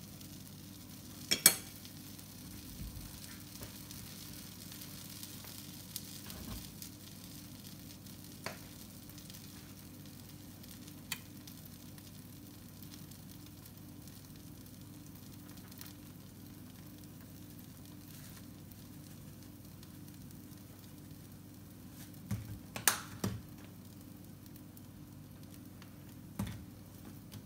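Beef rib slices under shredded cheese sizzling steadily in a frying pan. A sharp clink comes about a second and a half in, and a few more sharp knocks come near the end.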